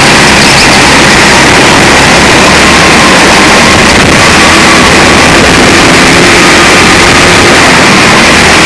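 Go-kart engine running hard on track, heard from a camera mounted on the kart itself. The audio is loud and overdriven, and the engine note is buried in dense noise.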